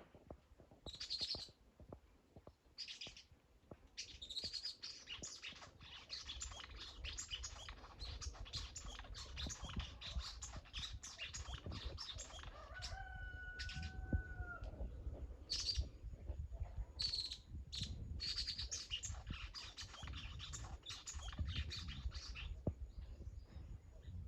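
Small bird chirping in quick, high-pitched runs of short notes, with a longer held whistle about halfway through and a low rumble underneath.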